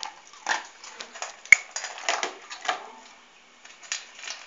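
A German Shepherd crunching dry kibble from a stainless steel bowl, in irregular bursts of chewing, with one sharp clink against the metal bowl about one and a half seconds in.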